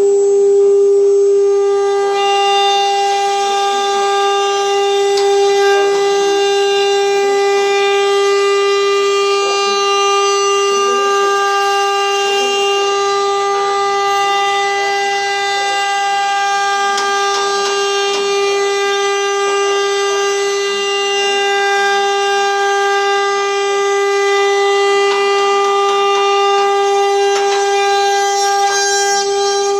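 CNC router spindle running at high speed with a loud, steady, high-pitched whine, over faint scattered ticking.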